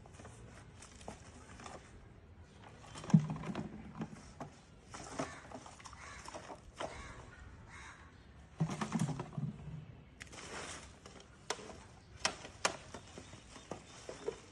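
Scattered clicks and knocks of handling noise, with louder bumps about three seconds in and about nine seconds in.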